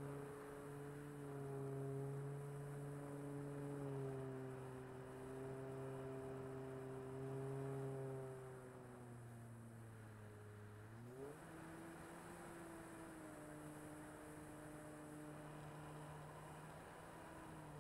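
Electric motor and propeller of a radio-controlled Corsair F4U model, heard from on board, giving a steady humming whine. About nine seconds in its pitch sinks for a couple of seconds, then rises sharply back up to a steady, slightly higher pitch as power comes back on.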